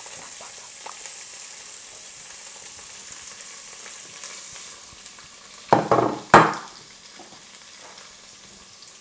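Carrots and green beans sizzling as they fry in a blue enamel pot and are stirred with a spatula. About six seconds in, the spatula gives a few loud scrapes and knocks against the pot.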